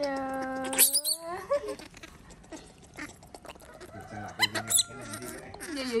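A baby macaque whining and squeaking for attention, as a spoiled infant does when it wants to be held. A drawn-out cry rises into a sharp, high squeak about a second in, and a few shorter squeaks follow around the middle.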